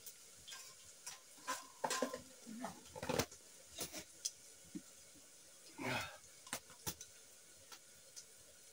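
Scattered light clinks and knocks of dishes, a jar and utensils being handled, with a few brief voice-like sounds about two, three and six seconds in.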